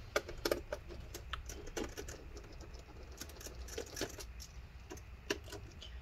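A PH1 Phillips screwdriver backing screws out of the plastic bottom cover of an ASUS X540S laptop: quiet, irregular small clicks and ticks.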